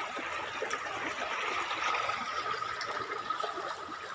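Water rushing swiftly along a narrow open masonry irrigation channel, a steady churning flow, with a faint steady high tone running under it.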